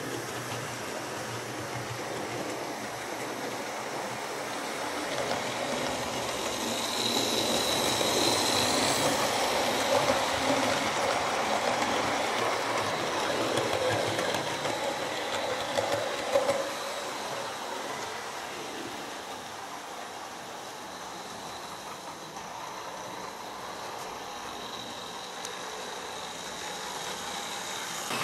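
Model trains running on the layout, with the small electric motor whirring and the wheels rattling along the track. The sound grows louder for several seconds as a model HST passes close by, with a thin high whine early in that stretch and a few sharp clicks.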